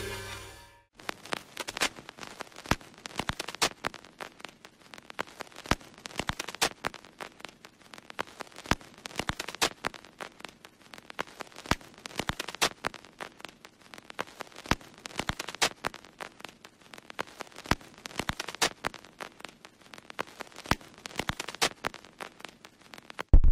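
Irregular crackling: a scatter of sharp clicks, several a second, over a faint hiss, broken near the end by one loud knock.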